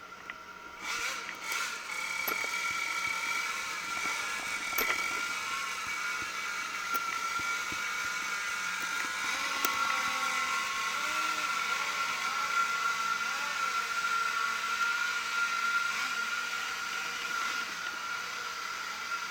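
Radio-controlled race boat motors running with a steady high-pitched whine.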